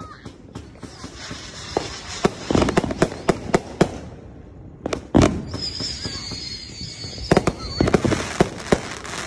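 Aerial fireworks going off: a quick run of sharp bangs from bursting shells, then a louder bang about five seconds in, followed by a high, wavering whistle lasting about two seconds, and then another cluster of bangs near the end.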